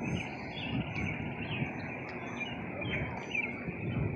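Small birds chirping in many short, quick calls over a steady low rumble.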